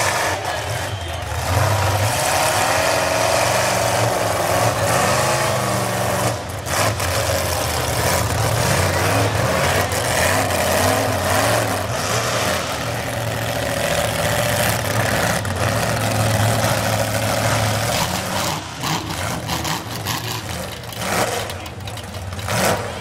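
Lifted mud-bog truck engines running and revving, their pitch rising and falling repeatedly as they work through deep mud.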